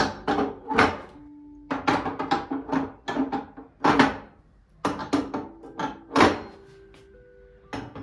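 Bursts of quick knocks and clatters from hard objects being handled and set down, several in quick succession, over soft background music with held notes.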